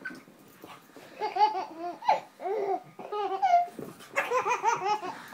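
Baby laughing in repeated short, high-pitched bursts of giggles, starting about a second in.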